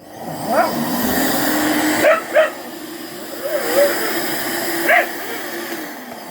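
A vacuum cleaner switches on, building up over about a second, then runs with a steady hum. A dog gives short barks and yips over it, about five times.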